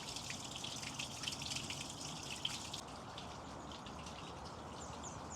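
A small stream trickling, with light rain pattering and dripping in scattered ticks over it.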